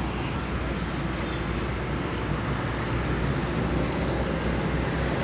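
Steady outdoor street ambience: a low, even rumble of traffic.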